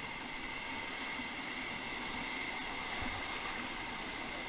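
Steady rushing of river whitewater around a paddle raft running a rapid.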